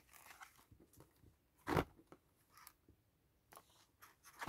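Handling noise from boxed charging cables in plastic-windowed packaging: scattered rustles and light clacks as the boxes are shuffled, the loudest a sharp clack a little under two seconds in.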